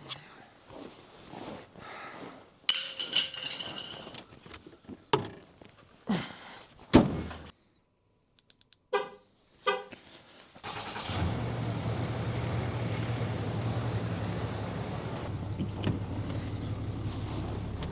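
Several knocks and clunks, then a loud thunk and a short run of beeps. About eleven seconds in, the Cummins diesel engine starts and settles into a steady, smooth idle on its new fuel filter.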